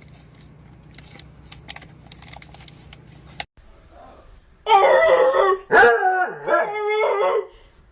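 A dog howling: two drawn-out, wavering howls from about five seconds in. Before them are a few seconds of faint low hum and scattered clicks.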